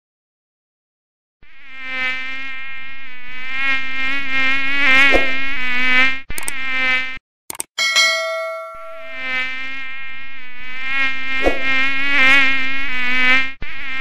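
Mosquito buzzing: a wavering, many-toned whine that starts about a second and a half in and swells louder, breaks off briefly, and returns for a second long stretch. In the gap, about eight seconds in, a couple of clicks and a bell-like ding ring out and fade.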